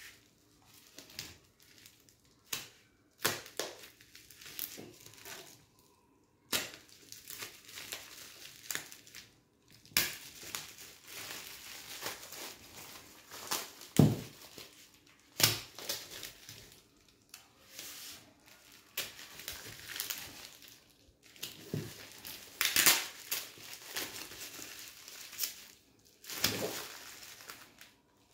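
Plastic packaging being unwrapped by hand: foam wrap and bubble wrap crinkling, tearing and crackling in irregular rustles, with a few sharper crackles.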